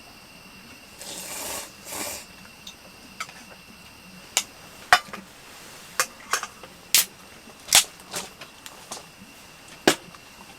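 A short swishing noise twice near the start, then a series of sharp clicks and knocks at irregular intervals, like small hard objects being handled and set down.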